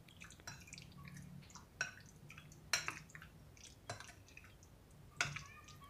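Faint wet squelching of a metal spoon stirring chicken cubes in a yogurt marinade in a glass bowl, with a few sharp clinks of the spoon against the glass.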